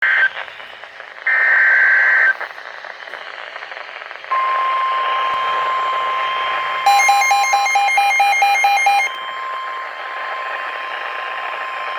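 NOAA Weather Radio emergency alert: the end of the SAME digital header, screechy data bursts, then about four seconds in the steady 1050 Hz warning alarm tone starts over a radio hiss. From about seven to nine seconds a fast pulsing electronic beep sounds on top of the tone.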